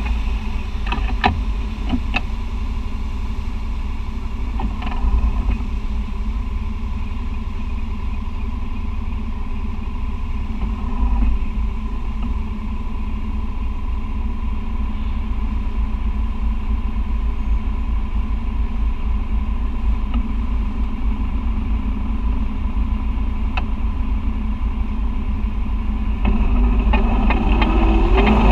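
Side-by-side UTV engine running steadily at low speed through shallow floodwater and mud, heard from on board, with a few sharp knocks in the first few seconds. Near the end the engine revs up and gets louder.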